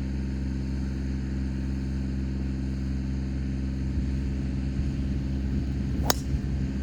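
A steady, low engine-like hum, with a single sharp knock about six seconds in.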